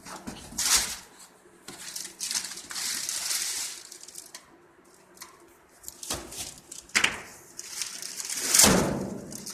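Cardboard box and packaging being opened and handled: irregular rustling and scraping, with a louder, drawn-out sound near the end.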